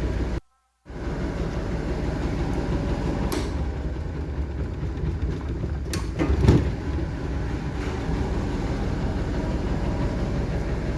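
Washing machine running with a steady rumble. It cuts out briefly under a second in, and there are a few light clicks and a louder knock about six and a half seconds in.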